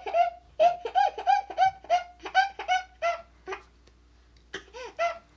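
A toddler laughing in a run of short, high-pitched bursts, about three a second, which falls off after about three seconds; three more laughs come near the end.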